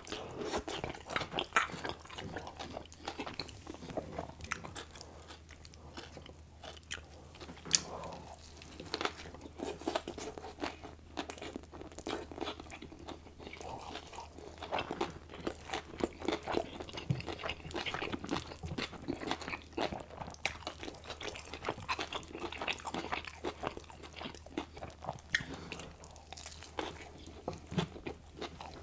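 Close-miked eating: crunching and wet chewing of cheeseburger and hand-fed pieces of diced onion, with many sharp irregular crunches and mouth clicks throughout.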